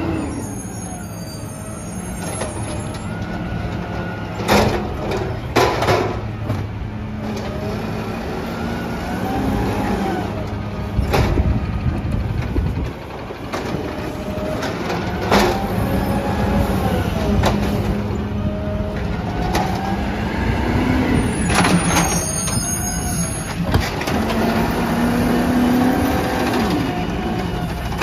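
Peterbilt 320 side-loader garbage truck's compressed-natural-gas engine running, its revs and hydraulic whine rising and falling repeatedly as the automated arm lifts and dumps trash carts. Several sharp bangs come as the carts strike the arm and hopper. Air brakes hiss twice, near the start and again about 22 seconds in.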